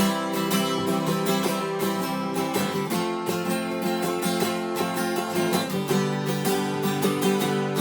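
Instrumental break in a country song: guitar strummed in a steady rhythm, with no singing.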